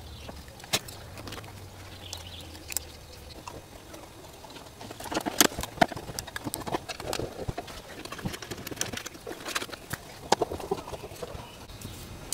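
Irregular clicks and light knocks of hand tools and parts being handled, with busier clusters about five seconds in and again near ten seconds.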